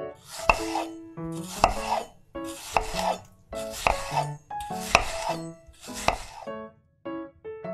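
A knife chopping through fruit on a cutting board, six crisp chops about a second apart, each a sharp knock with a short crunch, over soft piano music.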